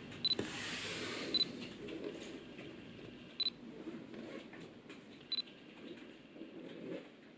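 Olympus OM-D E-M1 Mark III camera giving four short, high electronic beeps spread over several seconds, with faint clicks and handling noise from the camera body between them.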